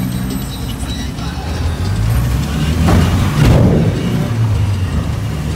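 Ride noise inside a danfo minibus in traffic: the engine running low and steady, with a louder rush of traffic noise about three seconds in. Music plays in the background.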